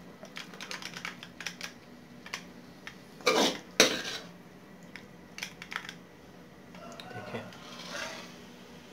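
A metal serving spoon scraping and clinking against a metal karahi and a ceramic plate as cooked potato and cauliflower are scooped out: a run of light taps and clicks, with a louder scrape and a sharp knock about three and a half seconds in, then softer scraping near the end.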